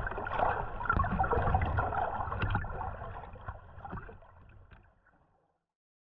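Muffled underwater water noise: a low rush and gurgling with scattered small clicks, fading out to silence from about three seconds in.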